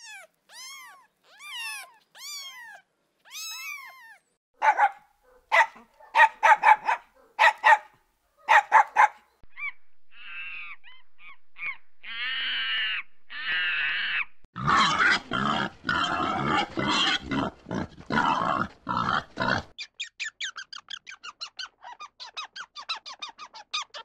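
A kitten mewing in a string of thin, high calls that rise and fall. These are followed by a run of other animal calls: short sharp cries, then louder, harsher cries. Near the end comes a rapid chattering of about five pulses a second.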